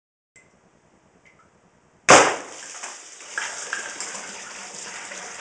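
A single sharp shot from a 9mm big-bore air rifle about two seconds in, the 80-grain hollow point bursting a water-filled plastic jug, followed by a steady hiss of water spraying and splashing out of the holes.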